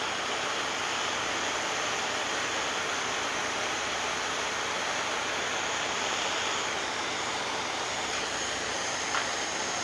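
A torch flame hisses steadily while it heats the cracked tractor radiator neck for soldering.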